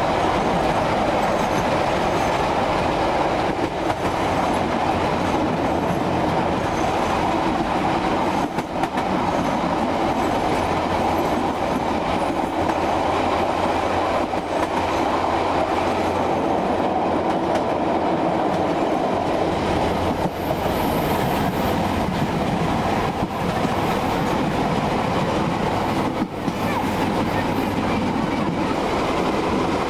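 The Southerner express passenger train running along the line, heard from on board: a steady rumble of its wheels on the rails.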